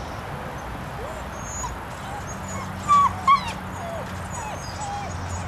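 German Shepherd puppy whining in a string of short rising-and-falling whimpers, with two louder yips about three seconds in, while it begs for food held in a hand above it.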